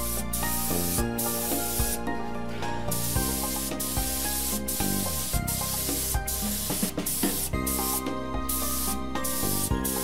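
Gravity-feed compressed-air spray gun hissing as it sprays paint, in short bursts that stop and start again every second or so, over background music.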